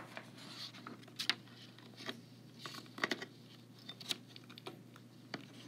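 Faint scattered clicks and short rustles of the test being switched to the next page, over a low steady hum.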